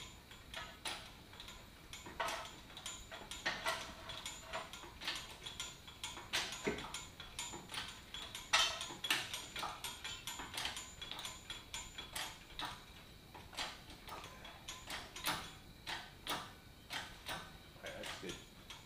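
Hydraulic hoist being pumped to lift an engine out on chains: a steady, irregular string of metallic clicks and clanks, several a second, from the pump handle and the lifting chains.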